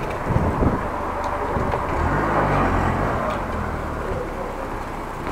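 Street noise from a slow bicycle ride, with wind rumbling on the camera microphone and a car engine running close ahead.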